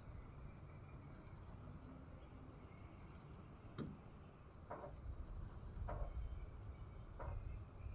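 Low, steady wind rumble, with scattered faint small clicks and a few short rustles in the second half.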